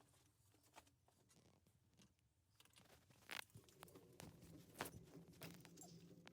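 Faint, scattered clicks and taps of hand work on a diesel engine during repair, growing busier and louder about halfway through, over a faint steady low hum.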